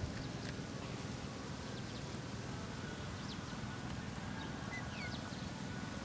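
Outdoor ambience: a steady low rumble with a few faint, short, high bird chirps now and then.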